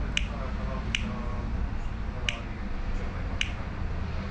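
Sharp single clicks, about one a second but unevenly spaced, over a steady low rumble.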